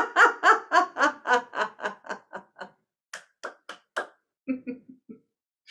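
A person laughing out loud in a rhythmic run of 'ha-ha-ha' pulses, about four a second, that fades away over the first few seconds, followed by a few breathy laughs and soft chuckles near the end, as in laughter yoga.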